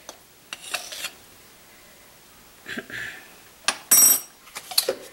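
Small kitchen handling noises from a metal measuring spoon and a baking powder tin: a few light knocks and a soft rustle, then a sharp metallic clink with a brief ring about four seconds in.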